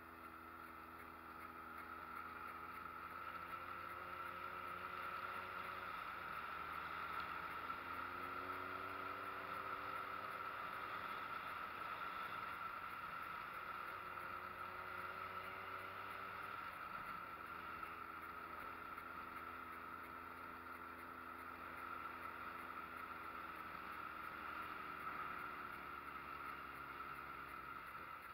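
Street motorcycle engine running on a climbing mountain road, its note rising, breaking off and rising again several times with the throttle and gear changes, over a steady hiss of wind and road noise.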